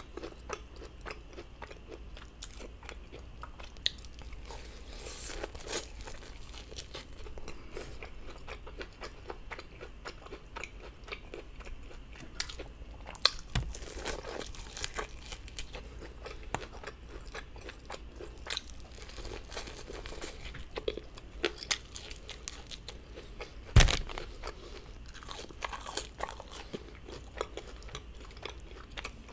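Close-miked eating of grilled corn on the cob: steady chewing and crunching with many small wet mouth clicks. A sharp thump about two-thirds of the way through is the loudest sound.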